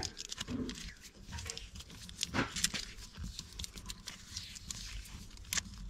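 Vinyl electrical tape peeling off the roll as it is wound around a bundle of wires, with faint irregular crackles and rustles.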